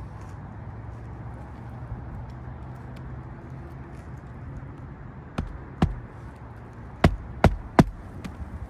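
Hammer driving roofing nails into a replacement shingle: two sharp strikes a little past halfway, then three quick, louder strikes close together near the end, over a steady low hum.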